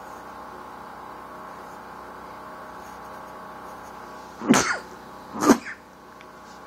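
A person coughing twice, two short loud coughs about a second apart, over a steady background hum.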